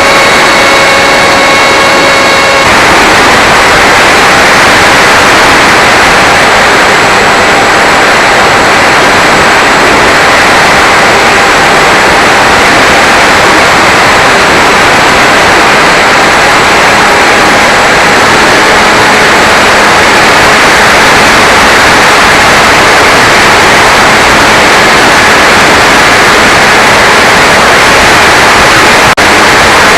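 Onboard audio from a Sky Surfer RC plane in flight: a steady electric motor whine for the first two and a half seconds, which then stops, leaving a loud, even hissing rush with faint steady tones under it. A single click near the end.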